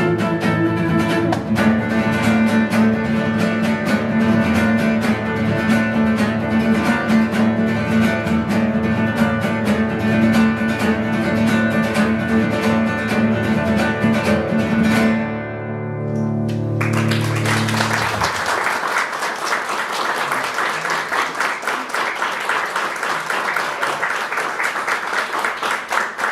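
Duo of acoustic guitars playing a fast piece that ends about fifteen seconds in with a final chord left ringing. An audience then applauds steadily through the rest.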